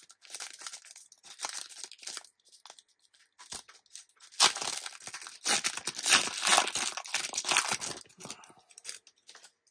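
A trading card booster pack being torn open by hand, the wrapper crinkling and tearing in irregular rustles. The tearing is densest and loudest in the middle stretch.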